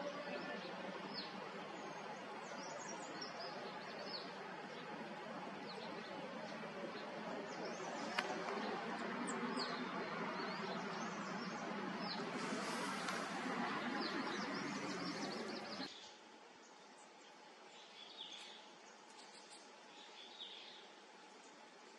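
Wild birds calling in the forest: many short, high chirps over a steady rushing background. About sixteen seconds in the background drops away suddenly, and a bird's calls stand out more clearly a few times.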